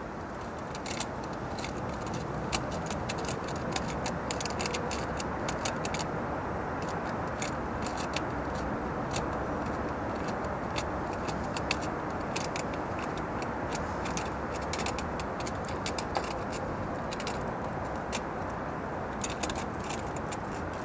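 Many small, irregular metallic clicks and taps as an adjustable wrench works the brass nut on a pool light's clamp band, drawing the clamp tight around the light's face ring. Steady outdoor background noise runs underneath.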